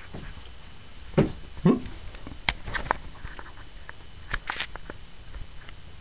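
Soft knocks and light clicking taps as cats paw and nose at the plastic water bottle holding the toad: two dull knocks in the first two seconds, then scattered sharp clicks.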